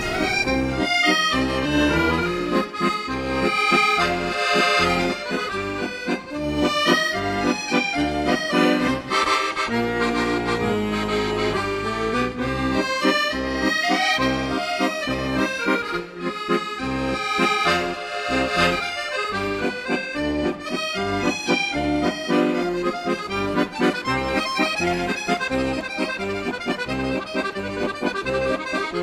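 Instrumental background music with a steady, rhythmic bass pulse.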